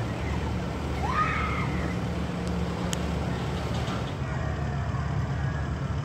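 Diesel engine of construction machinery running with a steady low rumble, with a brief distant high-pitched cry about a second in.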